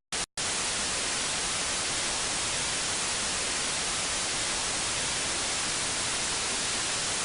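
Steady white-noise static hiss, like an untuned television. It cuts in with two brief bursts and then runs on evenly.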